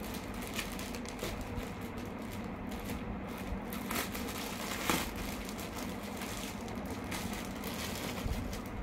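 Clear plastic packaging crinkling and rustling in irregular crackles as a folded cloth dupatta is pulled out of it and handled, loudest about four and five seconds in.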